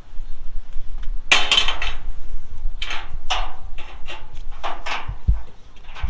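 Car-hauler tie-down strap hardware clanking and rattling in a string of short irregular bursts while a vehicle is strapped to the trailer, with a low thud about five seconds in.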